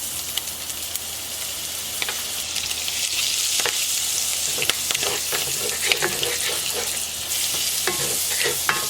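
Butter melting and sizzling in a hot cast iron skillet, the sizzle growing a couple of seconds in. A utensil scrapes and taps the pan now and then.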